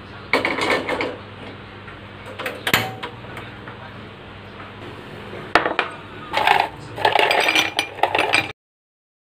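Kitchen clatter: several bursts of clinking and knocking of glass on a tiled counter, the longest a rattle of ice cubes in a drinking glass as it is set down. A low steady hum runs underneath, and the sound cuts off suddenly near the end.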